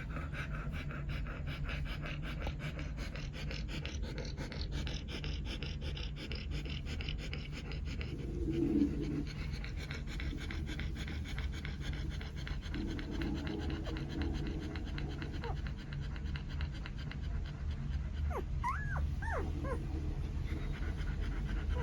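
Newborn German Shepherd puppy hiccuping in its sleep: a fast, even run of small ticks, with a brief low squeak a little before the middle and a few high, wavering squeaks near the end.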